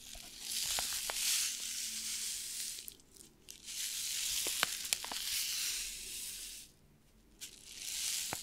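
A small packet crinkling as it is handled close to the microphone: three stretches of dense, crackly rustling with short pauses between them, and a few sharp ticks.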